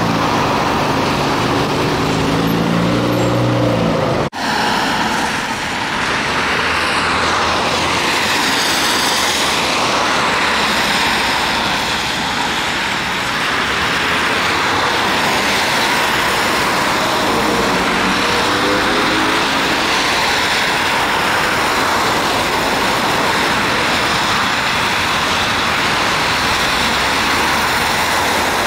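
Road traffic on wet asphalt: steady tyre hiss as trolleybuses and cars drive past one after another, with a low pitched hum near the start. The sound cuts out for an instant about four seconds in.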